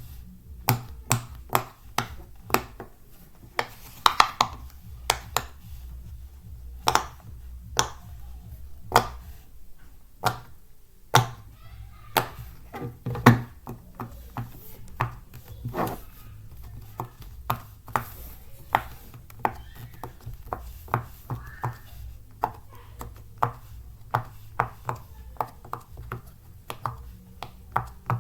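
Silicone bubbles of a pop-it fidget toy being pressed one after another, each giving a sharp pop. The pops come about once a second at first and quicken to about two a second in the second half.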